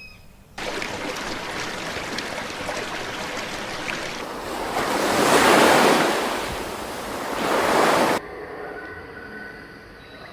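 Ocean surf: a steady rush of water that starts abruptly, swells as a wave breaks about halfway through and again near the end, then cuts off suddenly.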